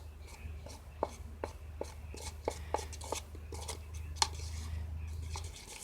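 Spoon stirring thick toothpaste in a bowl: irregular clicks and taps as the spoon knocks and scrapes against the bowl, a few a second. A steady low hum runs underneath and stops near the end.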